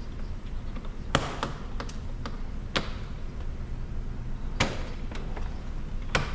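About five sharp plastic clicks and taps, spaced irregularly, from a car's door trim panel being handled as it comes away from the door.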